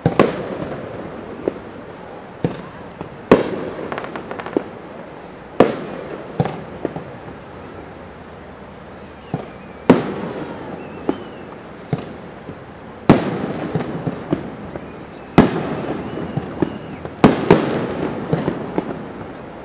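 Aerial fireworks shells bursting at a fireworks display: about eight loud sharp booms a few seconds apart, smaller pops between them, and a trailing rumble after each.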